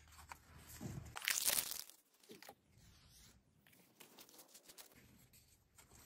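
Pokémon booster pack's foil wrapper torn open, a short crinkly tear about a second and a half in, followed by faint rustling and light clicks as the cards are handled.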